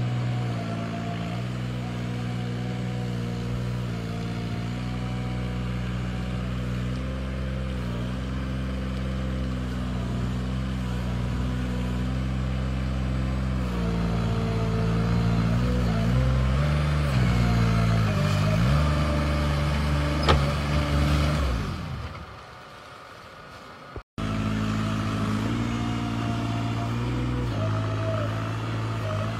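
Engine of a Weedoo amphibious weed harvester running steadily, its pitch shifting up and down as it works. It drops away suddenly about three quarters of the way through, then comes back.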